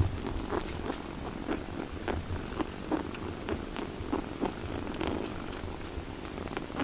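Domestic cat purring steadily, with many small clicks scattered through it.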